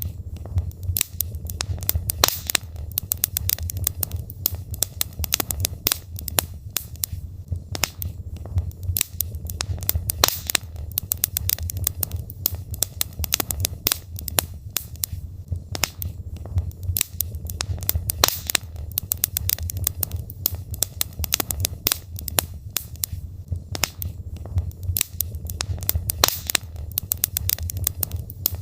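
Wood fire burning in a fireplace: logs crackling and popping in quick, irregular snaps over a low, steady rumble.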